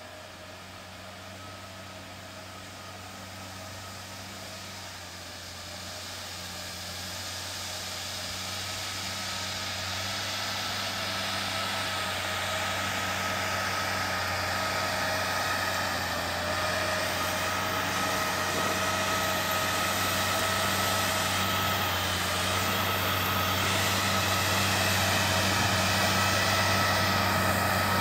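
Timberjack 240C skidder's diesel engine running steadily as the machine drives through deep snow, growing steadily louder as it approaches.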